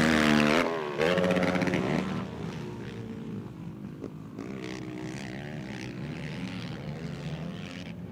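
Racing quad bike engines revving hard, the pitch climbing and falling with the throttle and gear changes. The sound is loud for the first two seconds or so, then drops to a quieter, more distant engine drone that goes on wavering.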